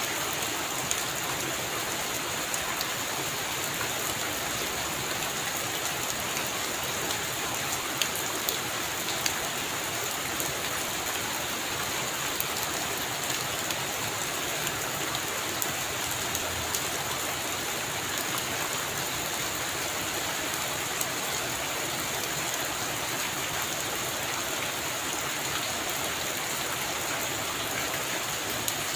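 Heavy rain falling steadily, a dense even hiss with scattered individual drops ticking sharply on near surfaces.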